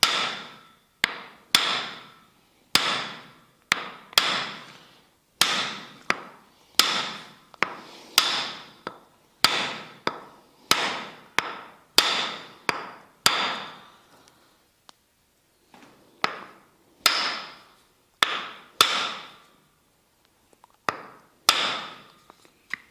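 Tok sen massage: a wooden mallet knocking a wooden wedge held against the body, about one strike a second. Each strike rings briefly before dying away, and the tapping pauses twice.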